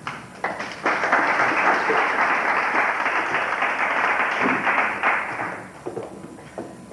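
Audience applauding, swelling about a second in and dying away after about five seconds.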